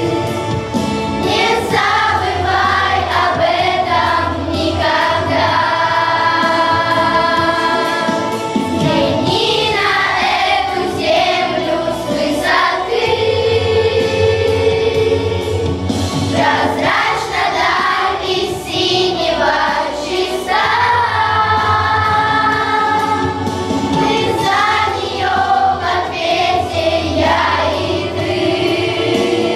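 Children's school choir singing a song together, with steady low instrumental accompaniment notes underneath.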